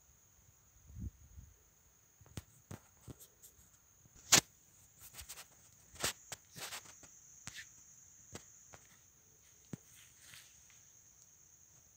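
A steady high-pitched insect trill, with irregular sharp clicks and crunches of footsteps on the dry forest floor over it; the loudest crunch comes about four seconds in.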